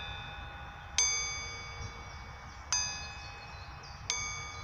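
A ringing metal chime struck three times, about a second and a half apart; each strike rings on with several clear tones and slowly fades.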